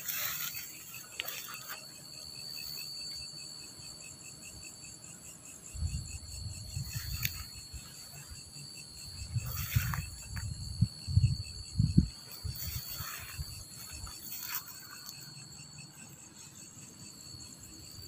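Night insects calling steadily: one continuous high trill, with a second insect's fast pulsing chirp beneath it. Grass rustles now and then, and there are low thuds of footsteps and handling, bunched in the middle.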